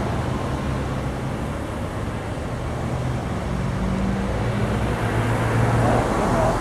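Cars driving past on the road, a steady traffic noise with a low engine hum that grows louder about four seconds in.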